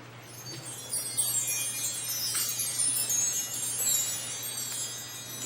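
Metal chimes shimmering in a long tinkling wash that swells about a second in and slowly fades toward the end, over a steady low hum.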